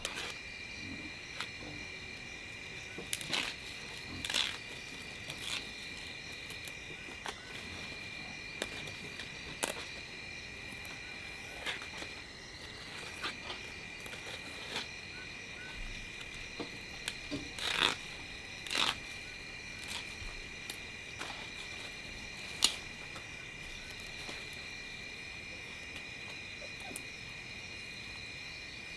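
Steady high-pitched chirring of night insects, with scattered small snaps and rustles as leafy vegetable stems are broken and peeled by hand.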